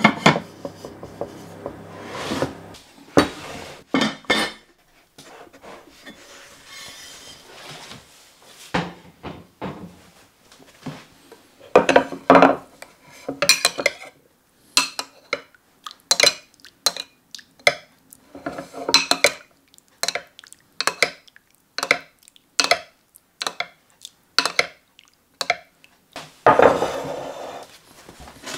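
A metal spoon clinking and scraping against a glazed terracotta baking dish while butter and juices are spooned over baked cod loin, with many short clinks, one or two a second. A terracotta pot lid knocks onto the dish at the start, and a louder clatter comes near the end.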